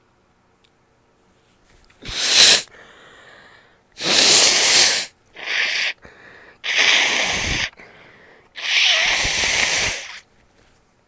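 A person sneezes once, sharply, then blows their nose hard four times, each blow a long, steady, forceful rush of air through the nose and the second one shorter.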